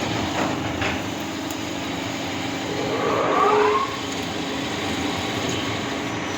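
Old ACE LT-2 CNC lathe running with a steady machine hum. About three seconds in, a louder whine lasts roughly a second and shifts in pitch.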